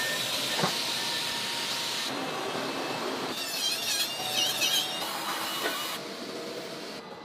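Factory machining noise across several cuts: a steady hiss, then a wavering high squeal of a hand-held tool working an aluminium alloy car wheel, quieter near the end.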